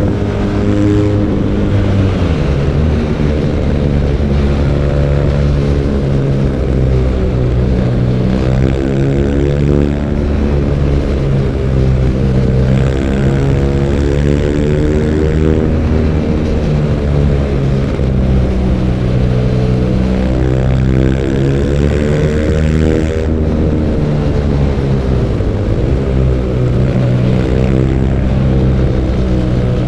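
BMW R nineT Urban G/S's air/oil-cooled boxer twin engine running under way, its revs rising and falling smoothly as the bike is ridden. A rushing noise sits above the engine and drops away suddenly late on.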